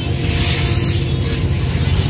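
Music with a steady low hum underneath and light, recurring high accents.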